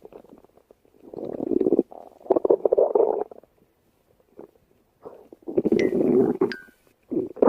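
Human stomach growling in several irregular bursts, with two short high squeaks near the end.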